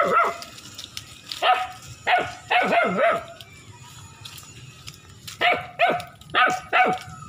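Black German shepherd puppy barking in short, high yips that drop in pitch: one at the start, one about a second and a half in, a quick run of three or four, a pause, then four more near the end.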